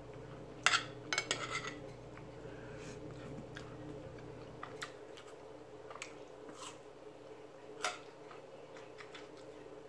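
Metal spoon and fork clinking and scraping against a bowl and a dinner plate while eating, with a quick run of clinks about a second in and a few single clinks later.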